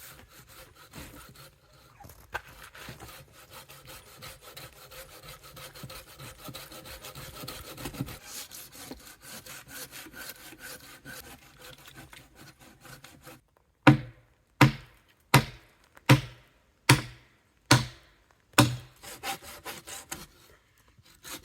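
Handsaw cutting through the wood of a fallen tree with quick, even back-and-forth strokes. About two-thirds of the way through, the sawing stops and seven loud knocks follow, about one every three-quarters of a second, before the sawing starts again near the end.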